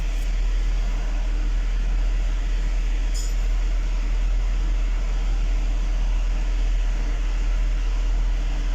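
GMC Yukon XL's V8 engine idling steadily and evenly, its misfire on cylinders 1, 3, 5 and 7 cured now that a broken feed wire to that bank has been repaired. A brief light click about three seconds in.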